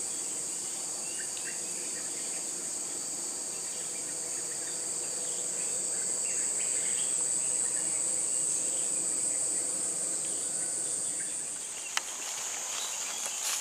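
A steady, high-pitched insect chorus, swelling slightly in the middle, with one sharp click near the end.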